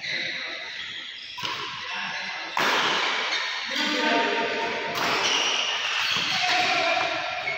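Badminton doubles rally: rackets striking the shuttlecock and players' shoes on the court mat. A dense, loud noise steps up about one and a half and two and a half seconds in and stays loud.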